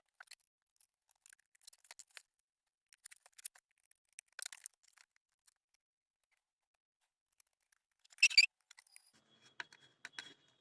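Faint, scattered small clicks and taps of nuts being fitted onto bolts by hand, with one sharper click-scrape about eight seconds in.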